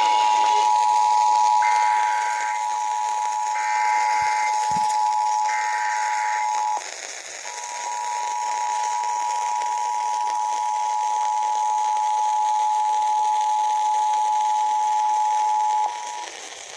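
Emergency Alert System broadcast: the steady two-tone attention signal, with three short data-burst squawks of the EAS header heard over it. The tone breaks off briefly about 7 seconds in, then resumes steadily until about 16 seconds in. This is the alert that comes before the spoken required monthly test message.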